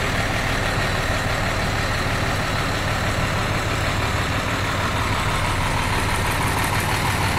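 An engine idling steadily, a continuous low hum with no change in speed.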